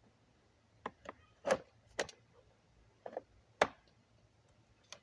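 Plastic parts of a tall fan's housing being handled and worked at during disassembly: a handful of scattered sharp clicks and knocks, the loudest about a second and a half in and again a little past halfway.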